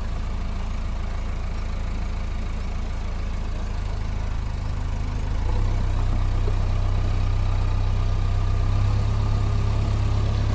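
Diesel engine of a JCB backhoe loader running steadily at low revs, growing louder about halfway through.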